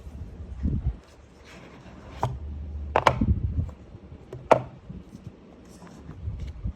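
Hands handling an iPhone 13 Pro retail box: a few sharp taps and clicks, the loudest about three seconds in and again about four and a half seconds in, with rubbing and low bumps between.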